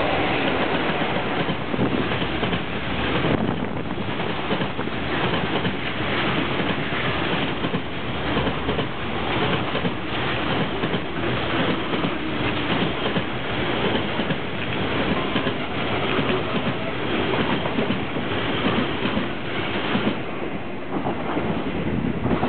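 Container freight train hauled by an EF66 electric locomotive passing close by: a steady rumble of the wagons, with a regular clickety-clack of wheels over rail joints. The last wagons go by near the end.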